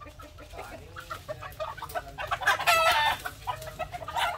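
Native chickens clucking around a wire cage trap, with one loud squawking call lasting about a second near the middle.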